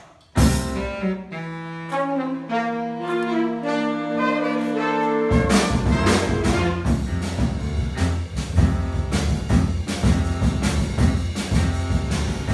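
Jazz big band playing: a loud ensemble hit opens into held saxophone and brass chords that build up note by note. About five seconds in, the bass and drums come in under the full band.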